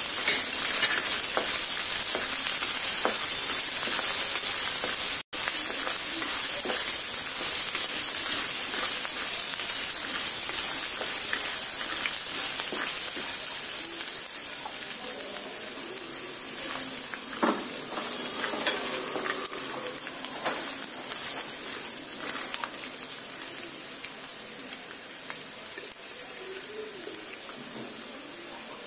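Peanuts, urad dal, mustard seeds, ginger and green chillies sizzling in hot oil in a kadhai, stirred with a wooden spatula that scrapes and taps against the pan. The sizzle slowly grows quieter toward the end.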